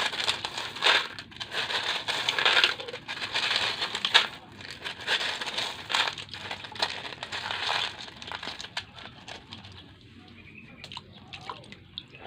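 Coloured gravel crunching and rattling as it is dug through: a busy, irregular run of small clicks and scrapes that thins out and grows fainter over the last few seconds.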